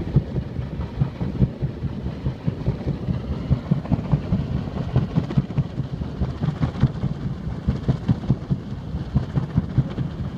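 Wind buffeting the microphone: a steady low rumble with rapid, uneven thumps.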